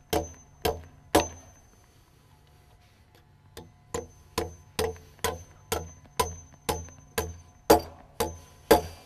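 Hammer striking wood at a steady pace of about two blows a second: three blows, a pause of a couple of seconds, then a longer run of about eleven.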